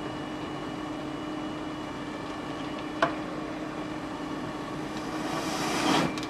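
Steady mechanical hum with a sharp click about three seconds in. Near the end, a hiss of escaping air builds for about a second and cuts off, venting in a white puff by the rear wheel of the overturned fire truck.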